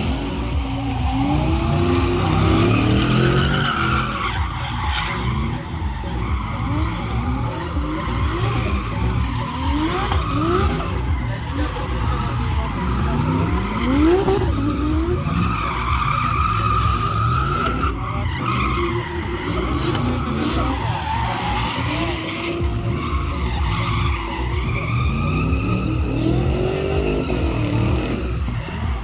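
Drift cars' engines revving up and down over and over, with tyres squealing as the cars slide sideways. Several long screeches stand out, including one a few seconds in and another about sixteen seconds in.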